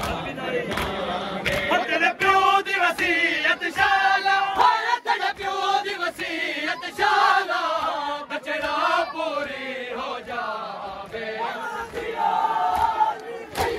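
A group of male mourners chanting a Muharram lament (nauha) together, with sharp slaps of hands beating on chests (matam) at intervals.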